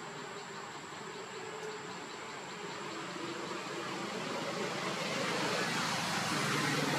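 Steady outdoor background noise that swells gradually louder, with a faint high insect buzz and a quick run of soft high ticks behind it.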